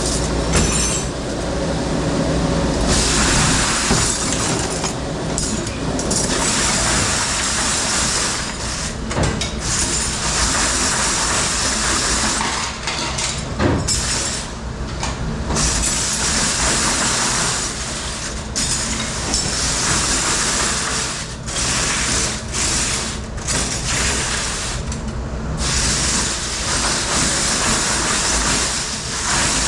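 Busy commercial dish room: a steady run of machine noise and rushing spray under irregular clatter and clinks of dishes, glassware and racks being handled.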